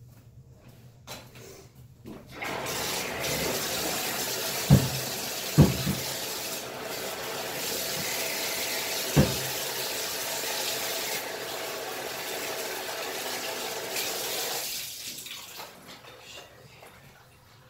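Water running hard in a small bathroom for about twelve seconds, starting a couple of seconds in and tailing off near the end. Three sharp knocks break through it, two close together early on and one a few seconds later.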